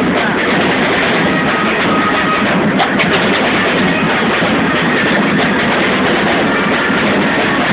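Loud, unbroken din of a packed cheering crowd with a drum band beating among it.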